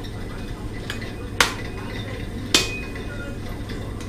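Dishes and utensils clinking: two sharp clinks a little over a second apart, the second with a short ringing tone, over a steady low hum.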